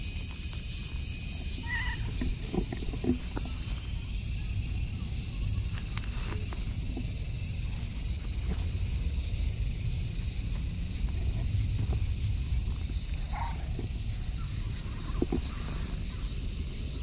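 Steady high-pitched insect chorus buzzing, with a low rumble underneath. A cat gives two short, faint meows, about two seconds in and again about thirteen seconds in.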